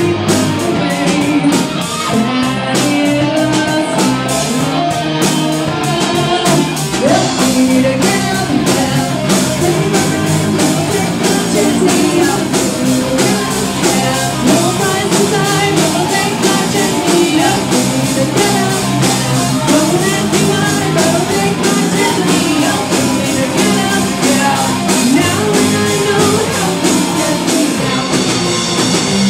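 Live rock band playing: distorted electric guitar and a drum kit keeping a steady beat, with a woman singing lead.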